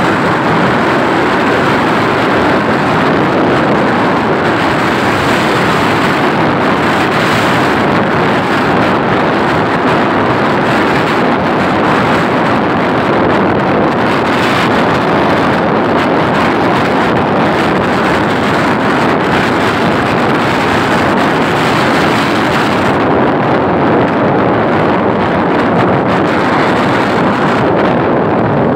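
Steady wind noise on the microphone over the road noise of a moving vehicle; the highest hiss drops away about 23 seconds in.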